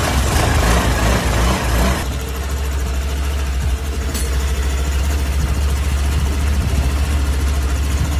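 Honda Aviator scooter's single-cylinder engine running loudly, noisier and brighter for the first two seconds, then settling to a steady idle with a strong low drone. A faint click sounds about four seconds in.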